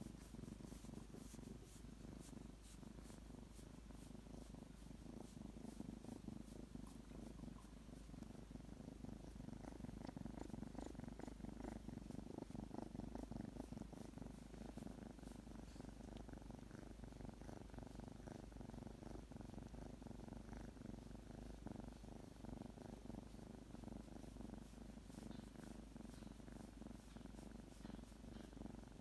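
Three-month-old kitten purring steadily while being stroked, the contented purr of a kitten that is comfortable, wants affection and is getting sleepy.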